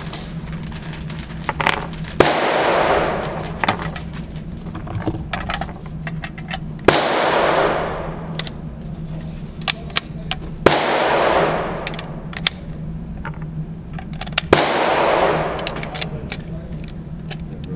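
Handgun shots fired singly, four loud reports about four seconds apart, each trailing a long echo, with fainter sharp cracks between them.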